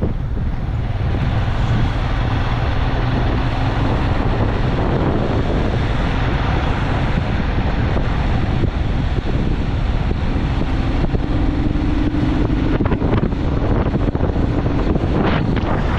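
Wind buffeting the microphone on a moving vehicle, with a steady engine hum and road noise underneath.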